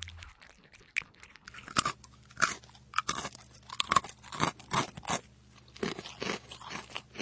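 A cat chewing and crunching food right at the microphone, about two crunches a second.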